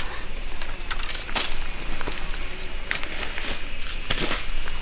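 Steady, high-pitched drone of insects, with a few sharp clicks about a second in and again near three seconds.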